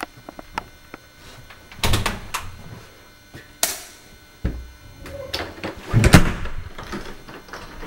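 A few faint clicks, then a series of sudden knocks and thumps from a door being opened and shut, the loudest about six seconds in.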